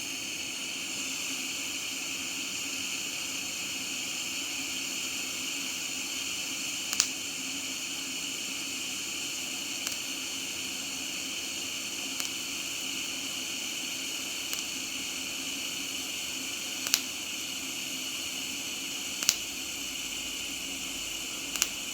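TIG welding arc running steadily, forming the weld puddle: an even hiss with a steady tone in it, broken by a few sharp clicks.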